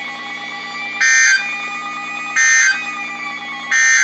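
NOAA Weather Radio's Emergency Alert System end-of-message signal: three identical short, shrill digital data bursts about 1.4 seconds apart, marking the end of the warning. A steady background hum continues between them.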